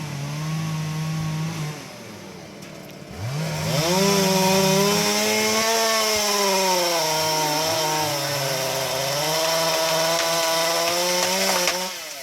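Chainsaw cutting into a tree trunk. It revs briefly, drops back, then revs up about three seconds in and runs hard through the cut, its pitch sagging and recovering under load, before it stops near the end.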